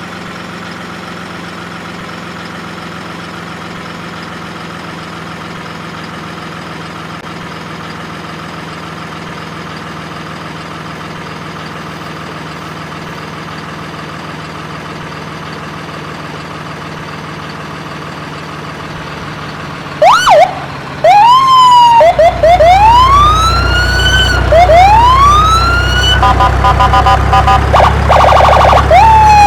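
A steady hum with an even pitch for about twenty seconds, then a loud electronic siren from a toy emergency vehicle: several rising-and-falling wail sweeps, switching briefly to a fast warble near the end.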